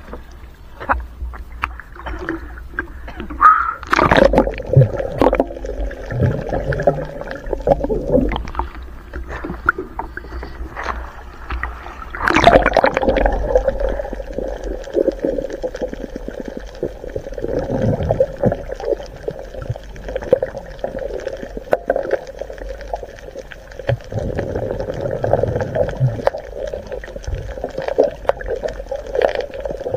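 Water as heard by a camera microphone held underwater and at the surface: muffled gurgling and sloshing with scattered clicks, and sudden loud rushes of water about four and twelve seconds in.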